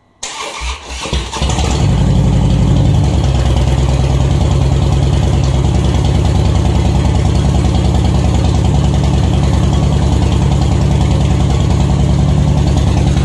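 Harley-Davidson V-twin engine cranked by its electric starter for about a second and a half, then catching and running at a steady, loud idle.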